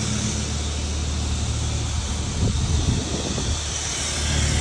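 Ford Ranger 3.2 five-cylinder turbodiesel with a straight-through exhaust running at low speed, a steady low drone whose pitch wobbles briefly around the middle, with wind on the microphone.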